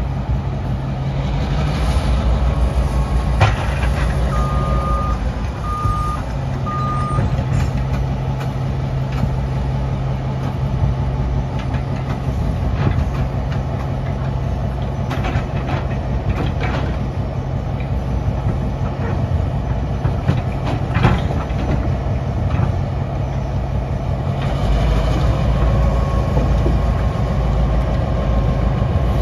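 Diesel locomotive engine running steadily as it pulls a slow-moving work train, with scattered metallic knocks from the train. Three short electronic beeps sound about five seconds in, and the low engine rumble grows louder near the end.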